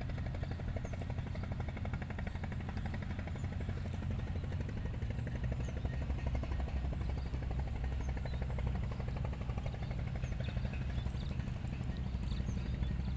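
A small engine running steadily, a low drone with a fast even pulse that holds throughout.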